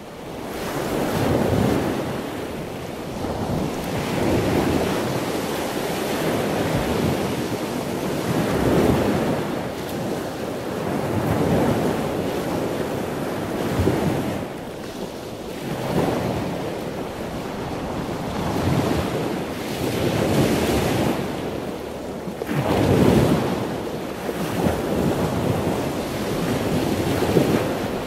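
Ocean waves washing and breaking, a rushing noise that swells and fades every few seconds, with wind.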